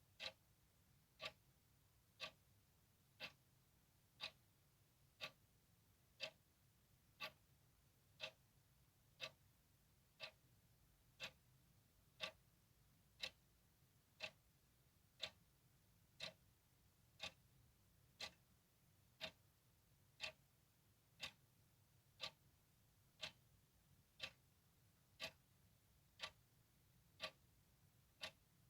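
Clock ticking steadily and faintly, about one tick a second.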